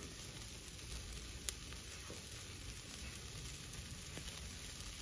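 Chicken drumsticks sizzling on a charcoal grill over glowing coals: a steady hiss with scattered crackling pops, the sharpest about a second and a half in.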